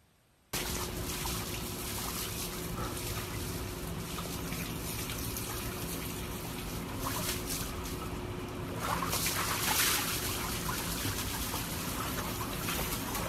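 Water splashing and trickling in a plastic tub as a husky moves about in it, starting abruptly about half a second in and getting a little louder near the end.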